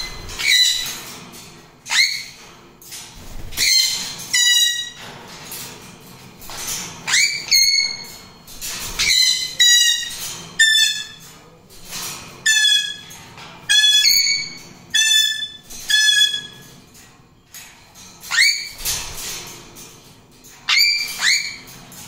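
Pet parrots screeching: loud, shrill calls that each sweep sharply up in pitch, repeated roughly once a second with a couple of short pauses.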